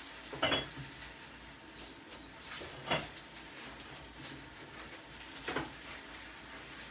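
Kitchen handling sounds: plastic bag crinkling as a ball of dough is pulled out of it, with three short knocks or rustles about two and a half seconds apart.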